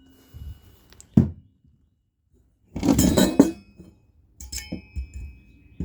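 Copper pipe fittings clinking and clattering as they are handled: a single knock about a second in, a louder clatter around three seconds in, then a few light metallic clinks that ring briefly.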